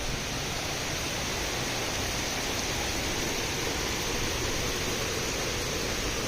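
Heavy rain falling, a steady even hiss with no thunderclap.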